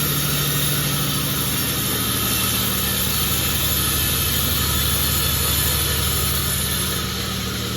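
Sawmill machine running steadily with a constant engine-like hum.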